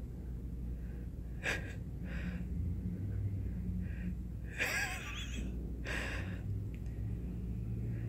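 A person close to the microphone laughing under their breath in a few short, breathy snorts and gasps, the longest about five seconds in, over a steady low street rumble.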